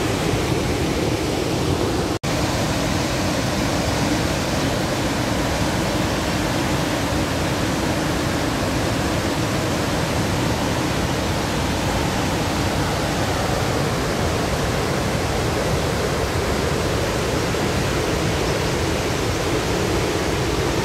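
A large waterfall in full flow: a steady, loud rush of falling water. It cuts out for a split second about two seconds in.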